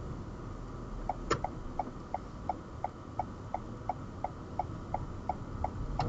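Car turn-signal indicator ticking inside the cabin, an even tick about three times a second that starts about a second in, with one sharper click just after it begins, over a steady low cabin rumble.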